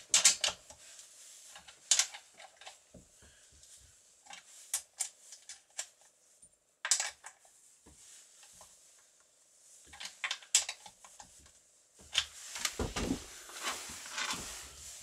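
Scattered metallic clicks and clinks of a T-shaped scrench working the guide-bar nuts on a Husqvarna 365 chainsaw as the nuts are tightened down, with a busier stretch of handling noise near the end.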